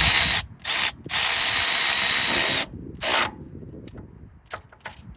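Cordless power tool with a socket driving in an engine-mount bolt: two short bursts, one long run of about a second and a half, then one more short burst. After that come a few light metallic clicks.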